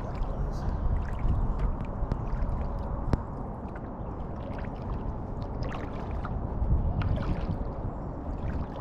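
Water splashing and gurgling around a paddled kayak, a steady wash with a few short clicks scattered through it.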